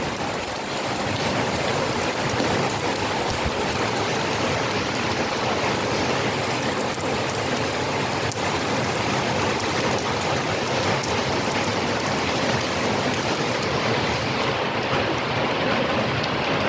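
Rain falling steadily, an even, dense hiss with no change in strength.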